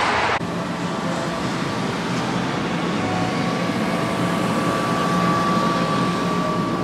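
Brief crowd chatter cut off about half a second in, then a steady mechanical hum with a faint, steady high whine.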